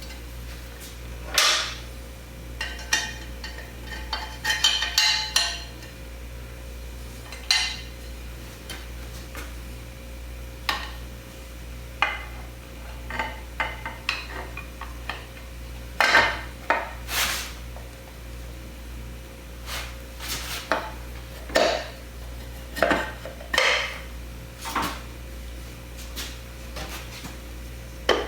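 Tools and small parts being handled on a workbench: irregular clicks, knocks and light clatter over a steady low hum.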